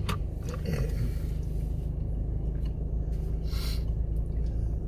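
Steady low hum of a car's cabin while someone eats, with a few soft clicks and a brief rustle about three and a half seconds in.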